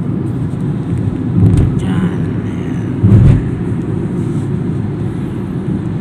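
Vehicle driving on a road: a steady low rumble of engine and tyres, with two louder thumps about one and a half and three seconds in.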